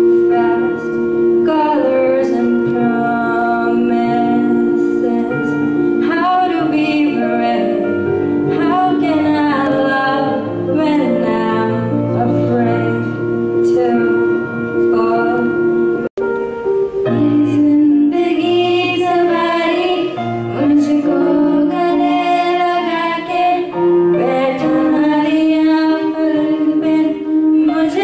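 A girl singing a song into a handheld microphone, amplified over the hall's speakers, over steady held accompaniment notes. The sound breaks off for an instant about sixteen seconds in, then the singing carries on.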